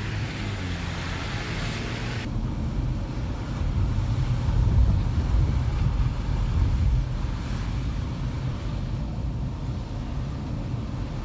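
Car driving on a snowy road, heard from inside the cabin: a steady low rumble of engine and tyres that swells louder about four to seven seconds in. A higher hiss cuts off suddenly about two seconds in.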